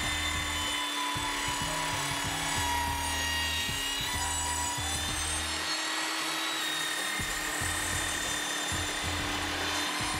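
Evolution Rage 5-S table saw running with a steady whine, its blade cutting a 45-degree mitre through a wooden deck board.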